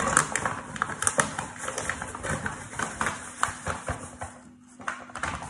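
Paper bag of plain flour crinkling and crackling as it is tipped and shaken over a plastic mixing bowl, flour pouring out; irregular crackles that ease off briefly about four and a half seconds in.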